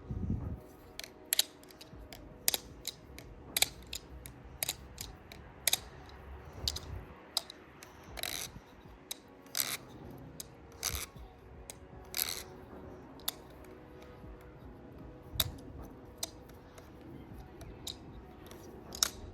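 Frank Z plastic-handled balisong trainer being flipped: irregular sharp clicks and clacks of the handles and blade swinging and closing, about one or two a second.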